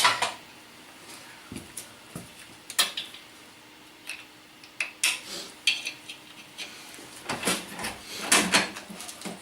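Irregular sharp clicks and snaps from a Vyatka Electron scooter's piezo-crystal ignition as the engine is turned over to check for a spark, with a denser clatter of clicks near the end.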